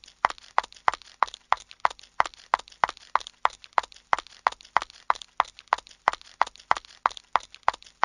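Running footsteps in high heels: a steady, quick run of sharp heel clicks, about three a second.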